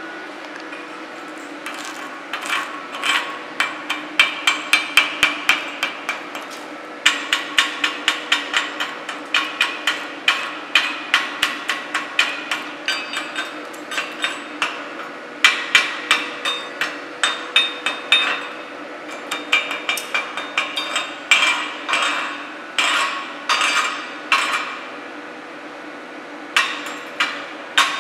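Chipping hammer striking a steel fillet weld to knock the flux slag off a freshly laid flux-cored bead: sharp metallic strikes that ring, in quick runs of about three or four a second with short pauses between runs. A steady hum runs underneath.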